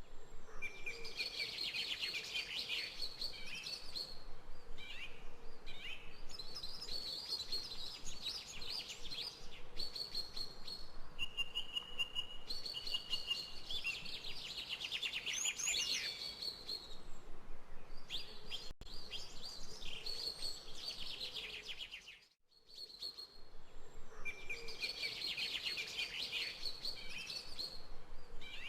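Several birds singing and chirping at once, with dense overlapping trills and calls over a steady background hiss. The sound briefly cuts out about two-thirds of the way through, then the singing resumes.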